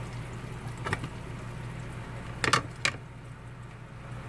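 A few light clicks and knocks of kitchen utensils on cookware, one about a second in and a sharper pair near three seconds, over a steady low hum.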